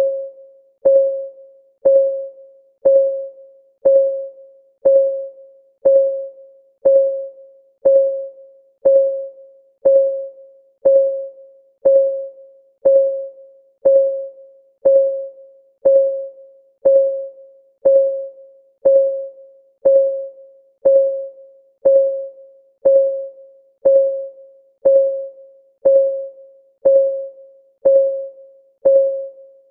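Countdown timer's ticking-clock sound: one tick a second, each a sharp click with a short ringing note that dies away quickly, steady and even throughout.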